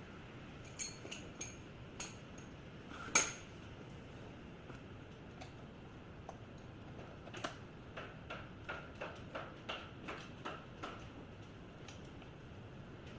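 Sharp metallic clicks and clinks of small hard parts being handled. There are a few scattered clicks with the loudest about three seconds in, then a run of about a dozen lighter clicks at roughly three a second.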